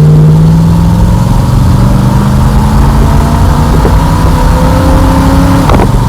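Ford Thunderbird's engine and exhaust under full throttle on its four-barrel carburettor, pitch rising steadily as the car accelerates, then dropping with a gear change near the end. The exhaust leak at the flex pipe has just been patched, and the run is to hear whether any leak remains; the owner finds it much quieter.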